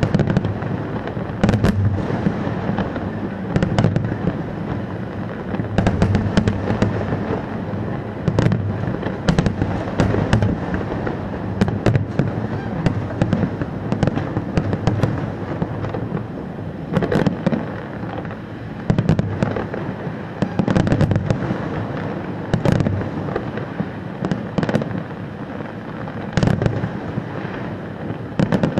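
Fireworks display going off without a break: a dense run of sharp bangs and crackles, several a second, over a continuous low booming.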